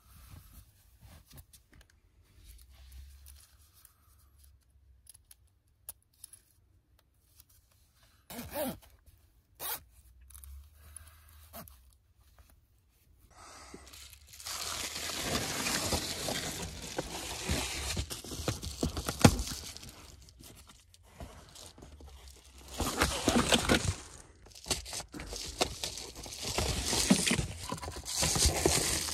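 Reflective bubble-foil window covers being pulled off car windows: quiet at first with a few soft knocks, then from about halfway, loud crinkling and rustling of the foil in stretches with short pauses.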